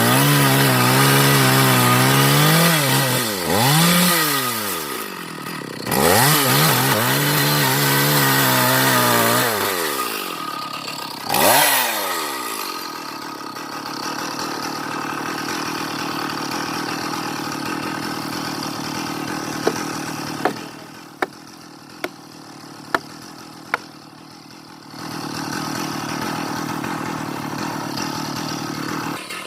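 Chainsaw running hard, its engine pitch dropping and rising again several times as the throttle is worked through a cut in timber, then running lower and steadier. About twenty seconds in, a handful of sharp knocks.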